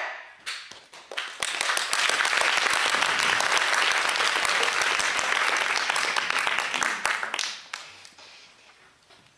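Audience applause: a few scattered claps, then full clapping from about a second and a half in, thinning out and dying away near the end.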